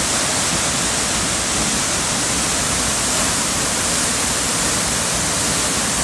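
Waterfall plunging down a rock face into a shallow rocky pool: a loud, steady rush of falling water.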